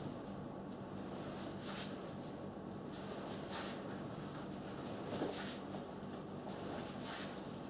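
Nunchaku swishing through the air in a slow, even rhythm as it is passed around the neck, four short swishes about two seconds apart.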